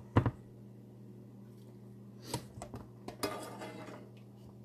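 Metal serving spoon clinking and knocking against a pot and a glass baking dish while sauce is scooped: one sharp knock at the start, a few lighter clinks about halfway, then a short scrape. A steady low hum runs underneath.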